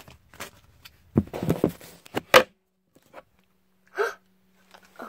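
Handling noise from a phone being picked up and moved: rustling and one sharp knock about two seconds in, then a brief gasp-like voice sound near four seconds in, with a faint steady hum coming in after the knock.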